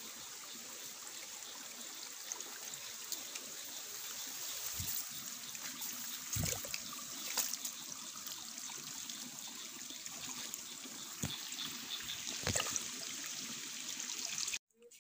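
Steady trickle of running water from a small stream, with a few soft knocks, cutting off suddenly near the end.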